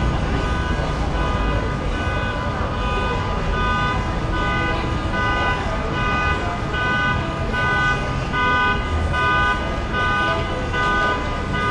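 A string of short pitched notes, several tones sounding together, repeating about twice a second over a steady low rumble.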